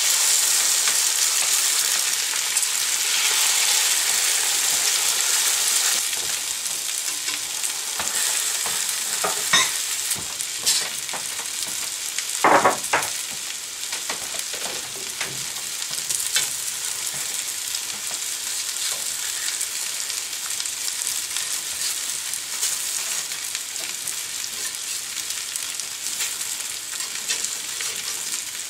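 Eggs frying in a hot pan: a loud sizzle, strongest for the first few seconds after they go in, then settling to a steady hiss. A few short knocks and clicks come about halfway through.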